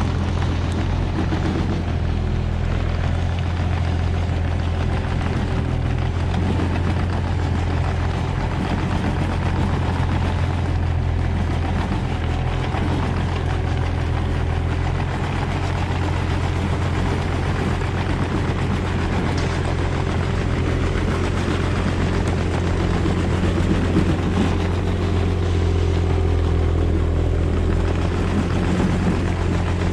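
Komatsu PC16 mini excavator's diesel engine running steadily, a constant low hum.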